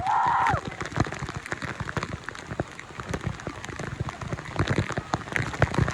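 Water drops pattering irregularly on a hard surface close to the microphone, many sharp ticks at uneven intervals.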